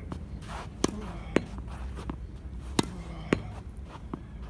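Tennis ball hit against a practice wall: sharp pops of the racket striking the ball and the ball hitting the wall, in two pairs about half a second apart, each pair roughly two seconds after the last, with fainter ticks of the ball bouncing between.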